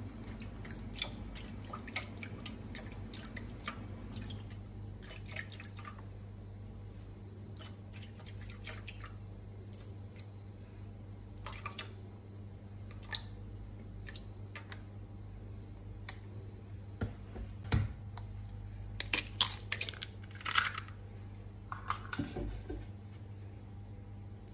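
Milk pouring and splashing into a stainless steel mixing bowl, with light clicks and drips. Later comes a cluster of sharper knocks and cracks as an egg is broken into the bowl, the loudest sounds here. A steady low hum runs underneath.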